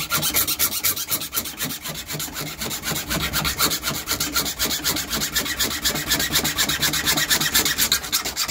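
Metal-cutting hacksaw sawing at an Ottolock's layered steel band held in a vice, a continuous rasp of fast, even back-and-forth strokes.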